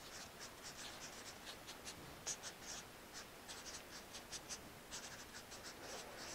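Marker pen writing on flip-chart paper: a faint, irregular run of short scratchy strokes with brief pauses between words.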